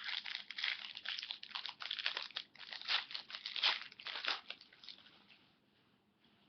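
Plastic trading-card pack wrapper crinkling and rustling as it is handled and opened, dying away about five seconds in.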